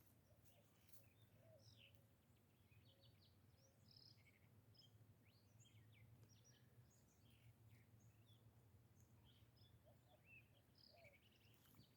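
Near silence, with faint, scattered chirps of small birds.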